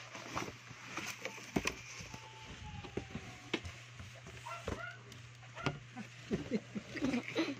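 Plastic wrap crinkling and cardboard box flaps scraping and knocking as a wrapped air fryer is pulled out of its shipping box, an irregular string of sharp crackles and knocks.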